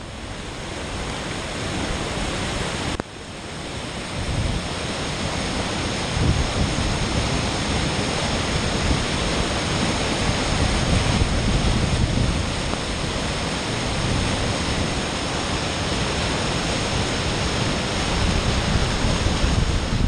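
River in flood from typhoon rain, rushing and churning steadily, with gusty wind buffeting the microphone. The sound dips sharply for a moment about three seconds in, then builds back.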